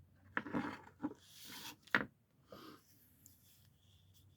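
Pocket knife being handled: a few light clicks and knocks with a short scrape, the sharpest click about two seconds in.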